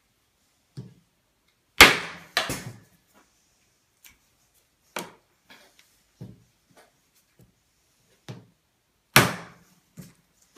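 Irregular knocks and thumps on a wooden worktable as a rabbit carcass is handled and cut with a knife, with two loud sharp bangs, one about two seconds in and one about a second before the end.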